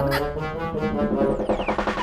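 Cartoon score music led by brass instruments, moving through a run of short notes.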